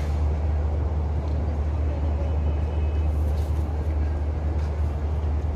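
Steady low rumble of city background noise, traffic-like, with faint voices beneath it.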